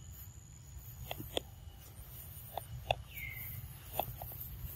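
Outdoor ambience with a steady low rumble, a handful of short sharp ticks and chips, and one brief bird chirp sliding down in pitch about three seconds in.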